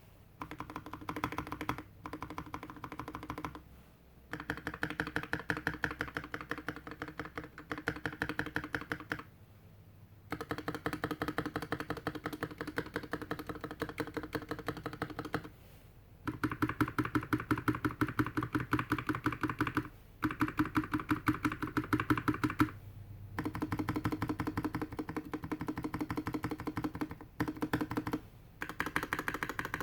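GK61X mechanical keyboard with stock Tecsee Blue Velvet linear switches, a stainless steel plate, a plastic case and DSA keycaps, its modifier and letter keys pressed in quick repeated runs. Each run lasts a few seconds, with short pauses between runs, and some runs sound deeper than others.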